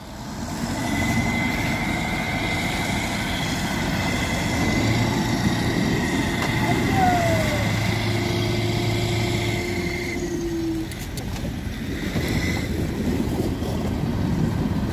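Heavy diesel engines of a wheeled tractor and a KAMAZ truck running together under load as the tractor tows the truck out on a cable, with a high steady whine for most of the first ten seconds.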